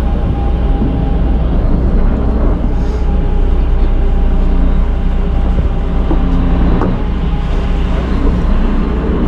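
A motor yacht's engines running steadily at low speed as it manoeuvres in close to the dock, heard as a loud, even low rumble.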